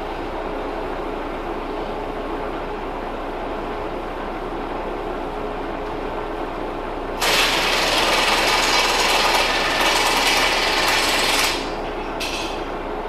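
Steady hum of running machine-shop equipment. Midway a loud, harsh rushing noise cuts in, lasts about four seconds and stops abruptly.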